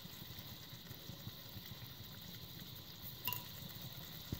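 Tomato sauce with garlic and olive oil simmering faintly in a pan over a gas flame, a soft even bubbling and sizzling. A short click about three seconds in and a knock near the end.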